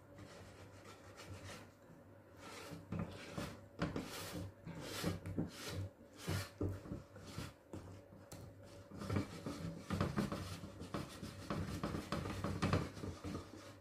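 Wire whisk beating thick cake batter by hand in a glass bowl: a run of wet, scraping strokes at about two a second, louder after the first couple of seconds and busiest from about nine seconds.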